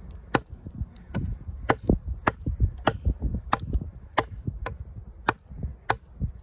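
Holtzman's Gorilla Survival Bushwhacker, a fixed-blade D2 steel bushcraft knife, chopping into a branch: about ten sharp strikes of the blade into the wood, roughly one every 0.6 seconds.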